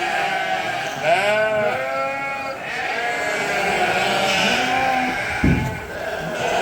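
Many sheep bleating at once, calls overlapping and wavering in pitch, with a short low thud about five and a half seconds in.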